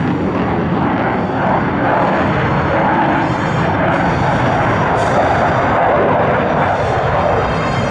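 Loud, steady jet noise from a Sukhoi Su-27 fighter's twin AL-31F turbofan engines as it flies its display.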